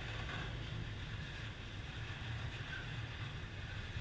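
Container wagons of an interstate freight train rolling steadily past: a continuous low rumble and rush of wheels on rail.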